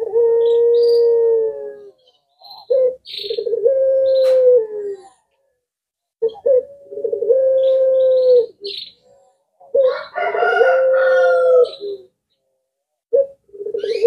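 Puter pelung dove, a domestic collared dove bred for its long coo, calling over and over: about five drawn-out coos, each held on one steady pitch for about two seconds, one every three seconds or so.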